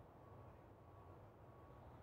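Near silence: a faint, steady low rumble with a thin high tone that comes and goes.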